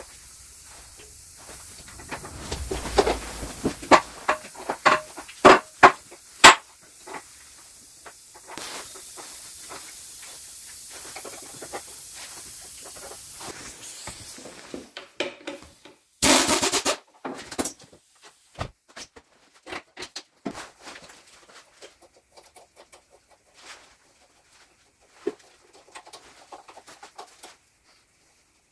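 Metal clinks and knocks as tappet followers are lifted out of a Gardner 6LXB diesel engine block. A steady hiss runs for several seconds, then a compressed-air tool gives one short, loud burst about 16 seconds in, followed by scattered clinks of metal parts being handled.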